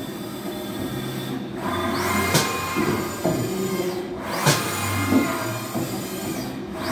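2012 Haas VF-6/50 vertical machining centre traversing its table back and forth along the X axis: the axis drive whines up and down in pitch with each move, over a steady machine hum, with a few sharp clacks.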